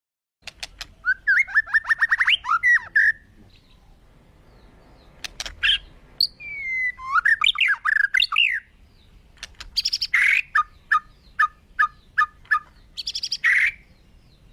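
Birds calling and singing in three separate phrases of rapid trills, gliding whistles and sharp clicks, the last phrase with a run of about seven evenly spaced short notes.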